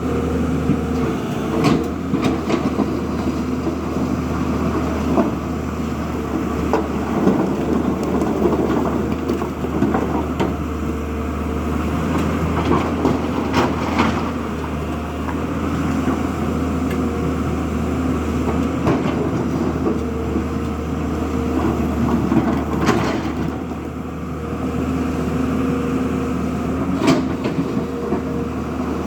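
Heavy diesel construction machinery running steadily, with a few sharp clanks.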